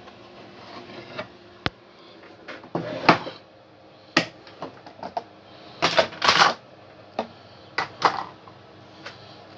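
Household items being handled: an irregular series of clicks, knocks and clatters with brief rustling, loudest around six seconds in.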